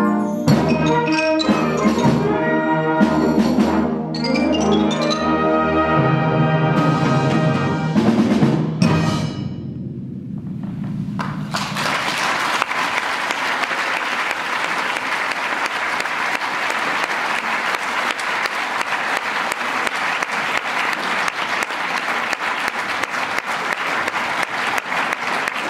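A concert wind band of brass, woodwinds and percussion plays the closing bars of a piece, with percussion strokes punctuating the chords. The last chord cuts off about nine seconds in and rings out briefly. From about twelve seconds in, the audience applauds steadily to the end.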